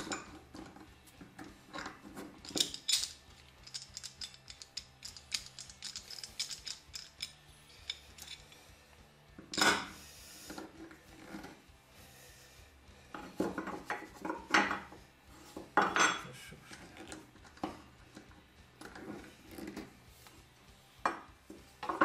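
Metal-and-wood clinks and knocks from handling steel F-clamps and a steel square on a wooden workbench, the clamps' screws being tightened. Many light clicks, with a few sharper knocks about ten seconds in, around fifteen seconds and at the end.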